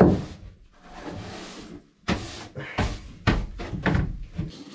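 A long-handled broom sweeping wood shavings across a plywood floor in a series of short, quick strokes, with sharp knocks where the broom head strikes the floor.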